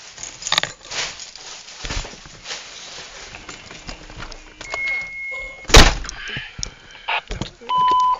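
Getting into a car: rustling and knocking as he climbs in, a steady electronic beep held for about a second, then the car door shutting with one loud thunk about six seconds in, and a short electronic chime near the end.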